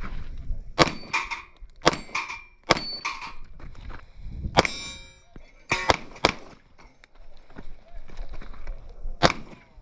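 Airsoft pistol firing single shots at an uneven pace, about seven in all, with BBs striking steel plate targets that ring with a metallic ding. The plate hit near the middle rings longest.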